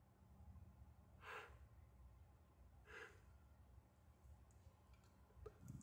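Two faint breaths through a wide-open mouth, about a second and a half apart, over a low steady hum.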